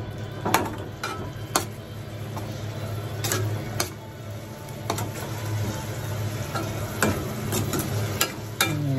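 A spatula stirring and scraping fuki stalks and tuna in a small aluminium pan on a gas stove, with a light sizzle and irregular clicks as the spatula knocks against the pan. A steady low hum runs underneath.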